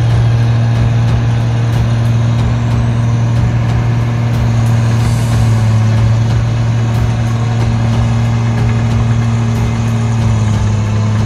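Diesel engine of a New Holland 1545 rice combine harvester running steadily, a constant low hum, as the machine travels across a muddy paddy field.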